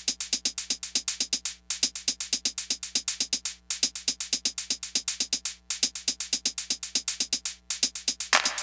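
Electronic music built on a fast, even drum-machine beat that drops out for a moment about every two seconds.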